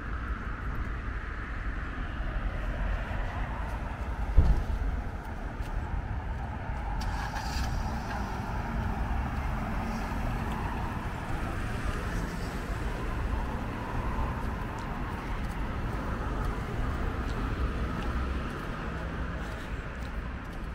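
Steady road traffic noise from a town street, with a brief thump about four seconds in.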